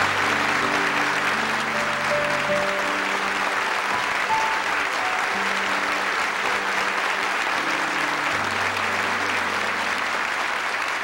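A large crowd applauding steadily, without a break, over soft music of long held notes.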